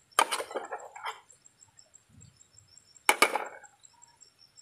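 Two short bursts of crackling and snapping about three seconds apart as food is handled and broken apart by hand.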